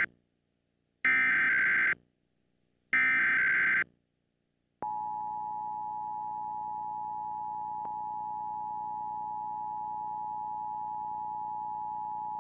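Emergency Alert System broadcast for a required monthly test: the end of one SAME header burst of digital data tones, then two more bursts about a second long, and about five seconds in, the EAS two-tone attention signal (853 and 960 Hz sounded together), held steady.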